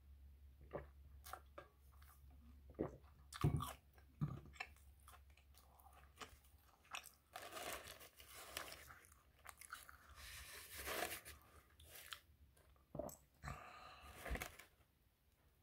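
Close-up mouth sounds of someone eating an English muffin with peanut butter and honey: scattered chewing smacks and clicks, with a sip from a tumbler at the start and two longer noisy stretches in the middle and near the end. A low steady hum lies under the first half.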